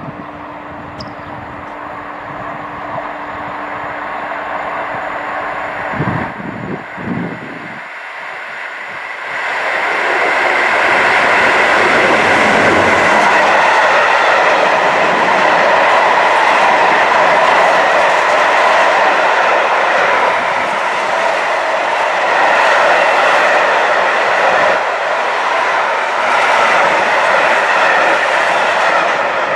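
Freight train of container wagons passing close by. It builds as it approaches, then about twenty loud seconds of wheels rolling and clattering on the rails as the wagons go by.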